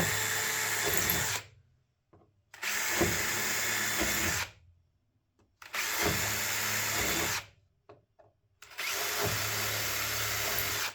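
Power drill running in four separate runs of about two seconds each, drilling holes for pop rivets.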